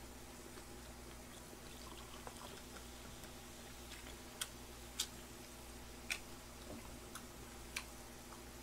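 A drink poured from a glass bottle into a glass, with a few light clicks spaced over several seconds.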